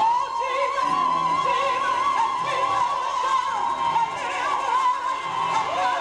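Live gospel singing: a high voice holds one long wavering note with vibrato across the whole passage, over a steady musical backing.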